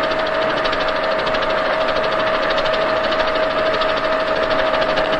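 Milling machine's tungsten carbide gang cutters machining the bedways of a lathe bed casting. A steady mechanical whine runs with a fast, even pulsing.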